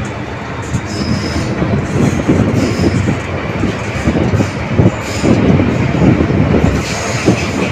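An MTR M-Train electric multiple unit running between stations, heard from inside the car: a loud, steady rumble of wheels on rail with uneven surges, and a few brief high wheel squeals.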